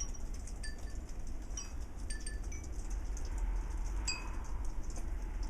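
Wind chimes ringing in scattered, separate tinkling strikes that each ring on briefly, over a steady low rumble.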